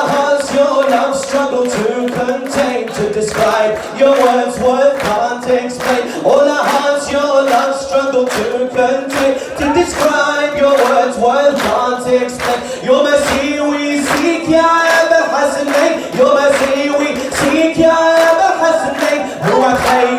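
A man singing an Arabic devotional song in praise of Imam Ali into a microphone, amplified through a PA, with voices joining in and a steady beat of handclaps about three times a second.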